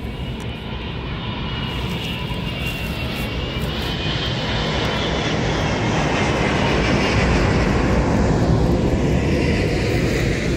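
Jet airliner on final approach passing low overhead: a rumble of engine noise that grows to its loudest near the end, with a high whine that drops in pitch as it passes.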